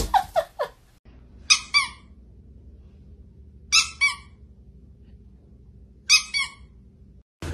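Three pairs of short, high-pitched squeaks, about two seconds apart, over a faint low steady hum. In the first second there are a few quick falling squeaks and clicks.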